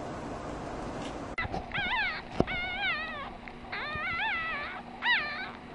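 A steady hiss for about the first second and a half, then a newborn puppy's high-pitched whimpering cries, a series of short calls that waver up and down in pitch, as it suckles at a feeding bottle.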